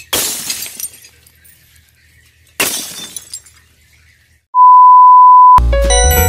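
Two glass-shattering sound effects about two and a half seconds apart, followed by a loud, steady high beep lasting about a second; music starts just after the beep.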